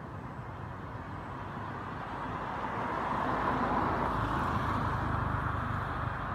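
Motor vehicle running, engine hum and rushing road noise swelling from about two seconds in and staying up.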